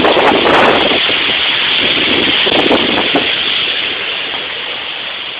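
Loud steady rush of storm wind and heavy rain on the microphone, swelling a couple of times and then gradually getting quieter in the second half.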